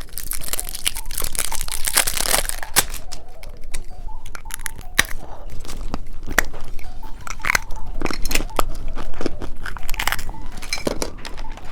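Close-up crunching and chewing of a purple dice-shaped candy, in sharp irregular crunches.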